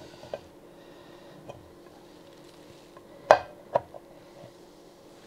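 Two sharp metallic clinks about half a second apart, a little over three seconds in, as the clutch cover is worked onto the crankcase of a Ducati Hypermotard 1100S engine, with light handling noise and a faint steady hum underneath.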